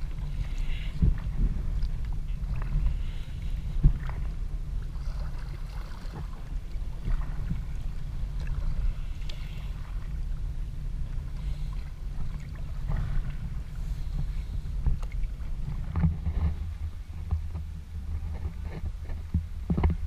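Prijon Seayak 500 LV sea kayak being paddled: scattered paddle splashes and water slapping the hull over a steady low rumble.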